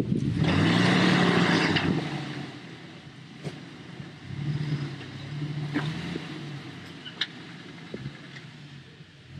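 A 4x4's engine revving up under load, loudest for about a second and a half near the start and again more softly about halfway through, with a few sharp clicks and knocks in between.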